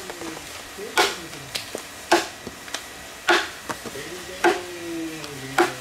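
Hatchet blows chopping into a wooden log: five sharp strikes at a steady pace of about one a second.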